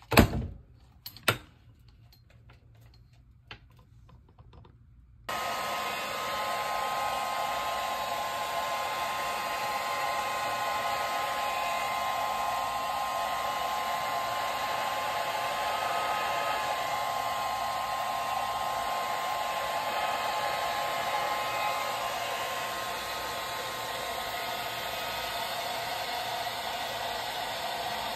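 A couple of handling knocks, then a hair dryer switches on about five seconds in and blows steadily.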